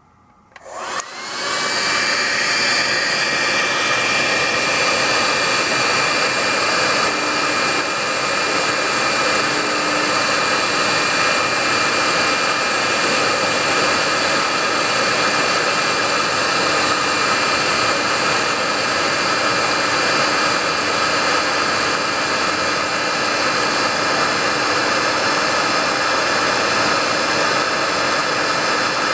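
An electric air blower switches on, its motor whine rising over the first second or so, then runs steadily with a loud rush of air.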